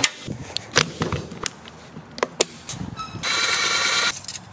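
Scattered clicks and clatter of tools handled in a metal tool cart drawer. Then, about three seconds in, a cordless driver whines steadily for about a second, running down the hose clamp on the engine's intake tube.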